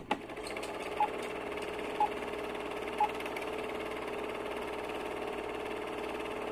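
Film-projector sound effect: a steady mechanical whirr with three short beeps a second apart, like a film-leader countdown.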